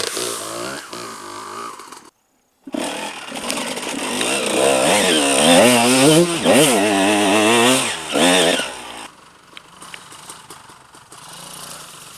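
Enduro motorcycle engine revving hard, its pitch rising and falling again and again. The sound breaks off abruptly for about half a second near the two-second mark, then drops to a much quieter running sound after about nine seconds.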